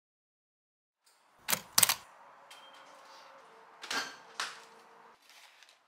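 Kitchen handling sounds at a double-door fridge: two sharp clicks about a second and a half in, a faint steady hum, then two more knocks around four seconds in.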